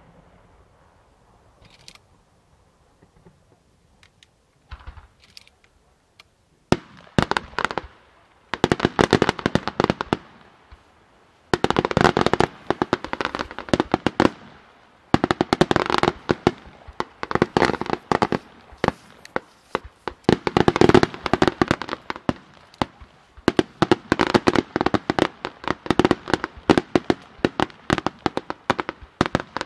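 Aerial fireworks shells bursting. After a quiet first few seconds with a few faint pops, rapid volleys of sharp bangs and crackling come in clusters of one to three seconds each, with short gaps between them.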